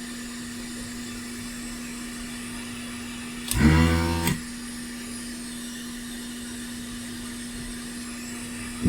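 The vacuum pump of an electric desoldering gun runs once, a loud pitched buzz lasting under a second about three and a half seconds in, sucking solder from the through-hole pins of an HDMI socket. Under it is a steady whir and hum from the hot air station.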